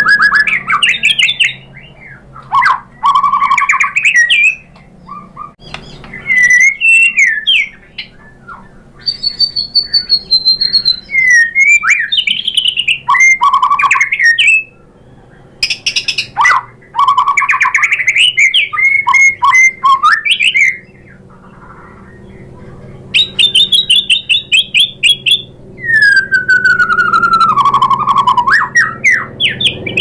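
White-rumped shama (murai batu) in full, loud song: a long run of varied phrases mixing clear whistles that glide up and down with fast rattling trills, broken by short pauses. Near the end comes a long falling whistle.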